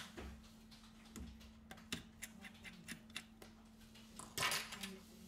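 Small precision screwdriver clicking and scraping on tiny screws in a tablet's metal frame, with a louder brief clatter about four and a half seconds in over a faint steady hum.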